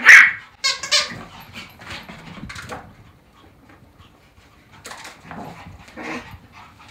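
Small dogs yapping: two loud, high-pitched barks in the first second, then quieter, then two shorter barks about five and six seconds in.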